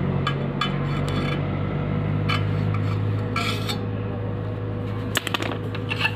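Stick-welding electrode rod clinking and tapping against steel plate: a string of short, light metallic taps, with a brief scraping burst about halfway through, over a steady low hum.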